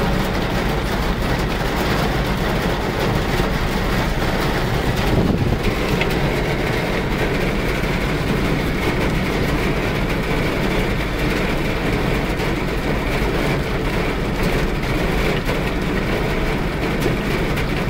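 Heavy rain falling, mixed with the running engines of vehicles in traffic: a loud, steady noise.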